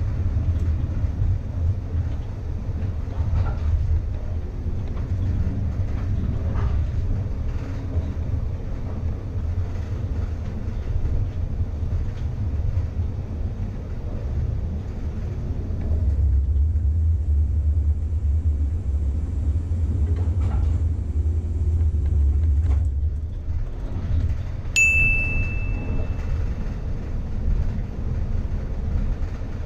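Air-electric PCC streetcar running along the rails, heard from its cab as a steady low rumble. Near the end a single bell strike rings out and fades over about a second, typical of the streetcar's gong.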